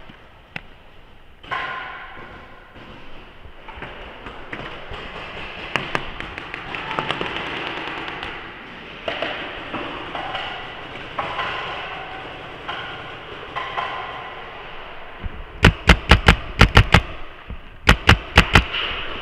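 Paintball marker firing two quick strings of shots close by, about eight in a rapid burst and then about five more, near the end. Before that, scattered pops of other markers and faint shouting echo around the indoor hall.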